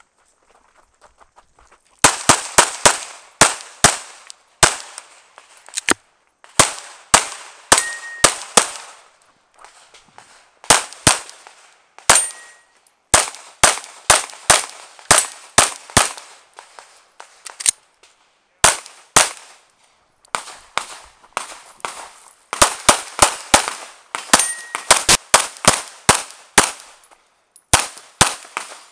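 Glock 17 9mm pistol firing a competition stage: rapid strings of shots in quick pairs, starting about two seconds in, broken by short pauses. A brief ringing tone follows a few of the shots.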